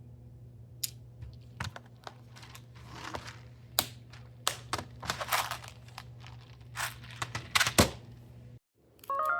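Packaging being handled and opened by hand: irregular crinkling rustles with light taps and clicks over a low steady hum, stopping shortly before the end.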